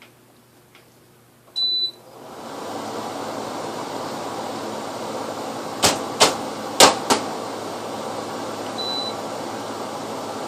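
A remote-controlled air conditioner beeps once as it takes a command, then its fan spins up to a steady whoosh. Four sharp clicks sound about halfway through, and a second, fainter beep comes near the end.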